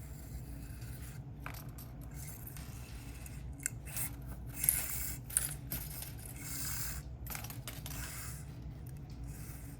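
Small aluminium-bodied tape measure being handled, its tape drawn out of the case with a light metallic scraping and a few sharp clicks near the middle.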